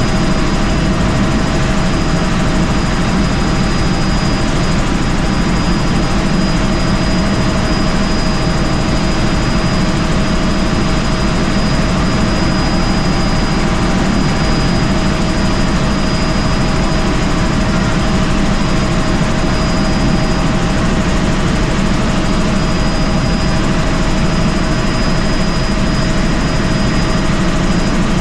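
Helicopter in flight, its rotor and engine making a loud, steady noise with a few constant whining tones over it.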